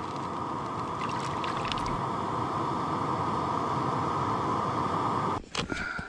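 Gas canister camping stove burner running with a steady roaring hiss, cut off abruptly about five and a half seconds in.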